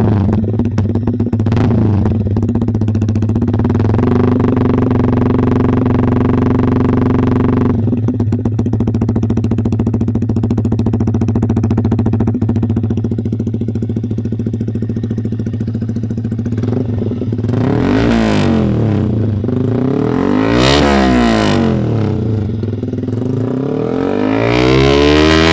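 Yamaha R15 V3's 155 cc single-cylinder engine running through a Kawahara Racing aftermarket exhaust: it idles steadily, then in the last third it is revved up and let back down about three times.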